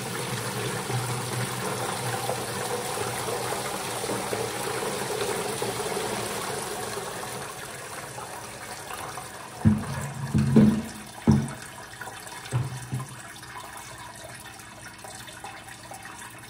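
Scuppernong grape juice pouring from a plastic bucket through a strainer into another bucket, a steady splashing pour that tapers off around the middle. Then four knocks as the plastic bucket is handled.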